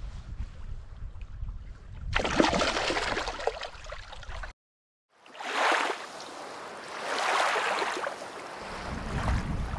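Shallow water washing and splashing around the hands as a sea trout is let go, with a louder splashy stretch a couple of seconds in. The sound cuts off suddenly at about four and a half seconds, then a rushing noise comes in and swells twice.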